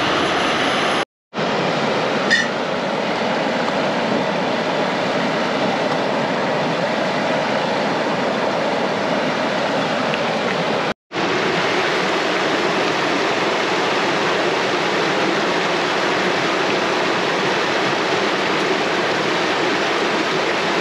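Rapids of a rocky mountain river rushing steadily, cut off twice for an instant by edits.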